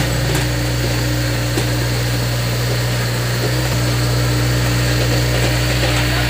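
Tracked hydraulic excavator's diesel engine running steadily as the boom lifts and dumps a bucket of soil, an even low engine hum with a slight change in note a little before four seconds in.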